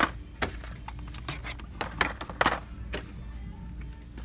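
Hot Wheels blister-card packages being handled and hung back on metal pegboard hooks: a string of light plastic-and-card clicks and rattles, several each second.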